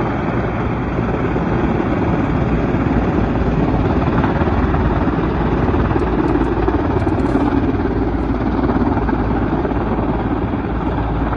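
Helicopter running, a steady, dense rumble of rotor and engine noise.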